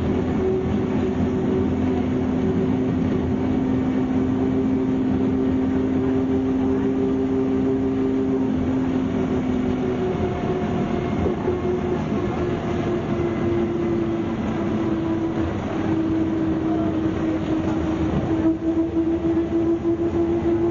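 MCW Metrobus with a Cummins diesel engine running on the move, heard from inside the bus: a steady engine and drivetrain drone with two whining tones. The lower whine drops out about halfway through, and the sound turns rougher near the end.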